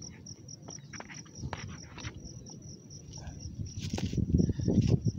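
Insect chirping in a steady trill of rapid, evenly spaced pulses. A few scattered clicks, and from about four seconds in a louder low rustling noise close to the microphone.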